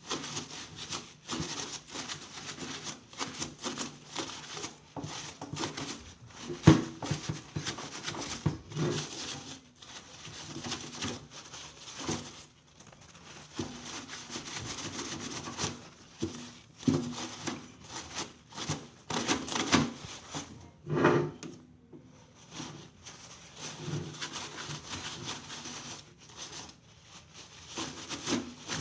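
Hands working on a microwave oven: irregular rubbing, scraping and light clicks and knocks of parts and tools being handled, with a sharper knock several seconds in.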